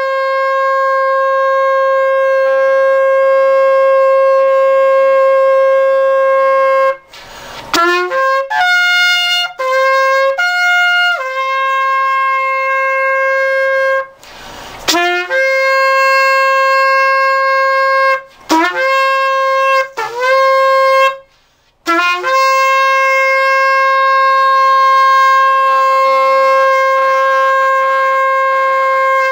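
A shofar being blown, freshly cleared of an oil-scale blockage and with a reworked mouthpiece. It sounds long, steady blasts on one bright note, with short breath gaps between them. Between the long blasts come quick runs of short notes, some jumping up to a higher note.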